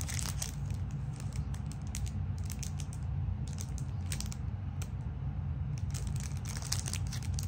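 A package being worked open by hand, tough to open: crinkling packaging with scattered clicks and crackles, over a steady low hum.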